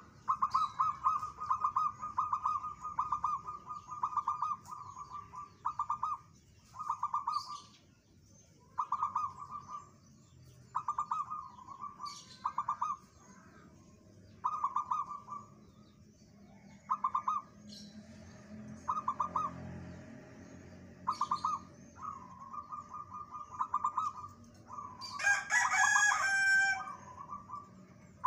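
Zebra dove cooing over and over in short, rapid pulsed phrases, one every second or two, with a longer unbroken run at first. A louder, different bird call breaks in about 25 seconds in.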